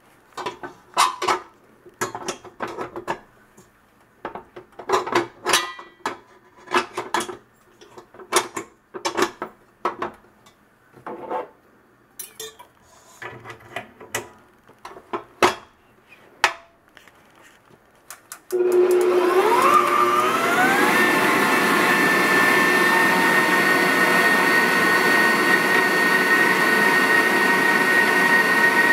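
Clanks and clicks of a stainless steel bowl and wire whisk being fitted to a Kenmore Elite bowl-lift stand mixer. Then, about two-thirds of the way in, the mixer's motor switches on, its whine rising in pitch for a couple of seconds as it speeds up, and it runs steadily, whipping egg whites.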